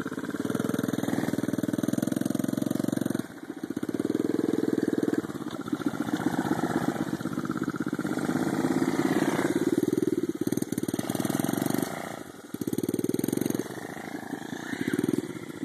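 Small 50cc youth ATV engine being ridden, surging and easing off in several throttle bursts, dropping back briefly about three seconds in and again around twelve seconds.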